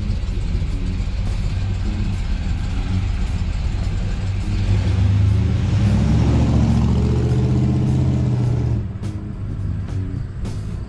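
A pickup's crate 350 V8 accelerating away, its pitch rising for several seconds before the sound drops off suddenly near the end.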